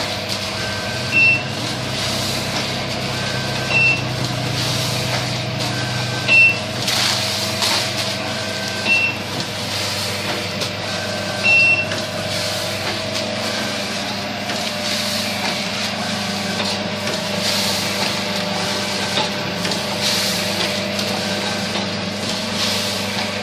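Stainless salt sachet packing machine running with a steady mechanical hum. A short, high beep sounds about every two and a half seconds over the first half, five times, and brief hissing bursts come now and then.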